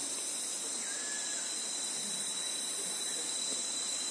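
Steady high-pitched drone of forest insects with a thin constant whine above it, and a faint short chirp about a second in.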